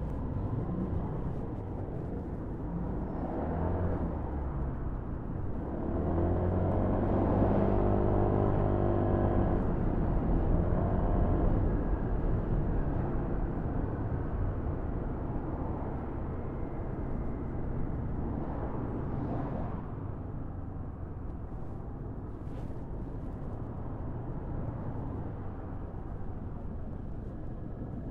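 Motorcycle engine and road noise while riding through city traffic. The engine grows louder about six seconds in, stays loudest for several seconds, then eases back to a steady level.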